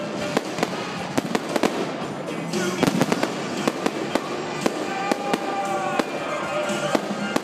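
Aerial fireworks bursting in a rapid, irregular barrage of bangs and crackles, several reports a second.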